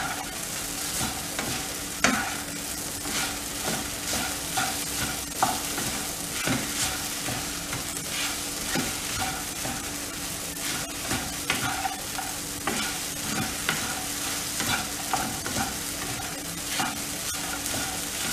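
Wooden spatula stirring and scraping sago pearl khichdi around a wok, with irregular scrapes and taps against the pan over a steady sizzle of the mixture frying. A steady low hum runs underneath.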